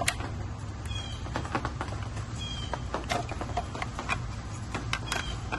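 Scattered small clicks and taps of a plastic balancer module and its wire leads being handled and pushed into an e-bike frame's controller compartment.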